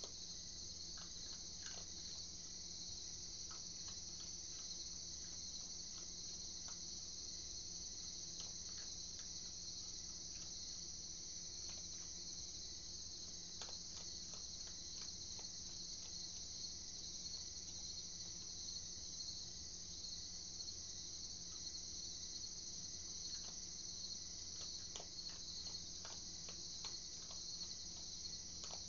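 Crickets chirping in a steady night chorus, with faint scattered clicks over it.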